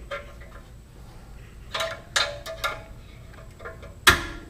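Pliers clinking against the steel exhaust springs and pipe while prying an exhaust spring loose. There are a few sharp metal clicks about two seconds in and a louder, ringing clank near the end.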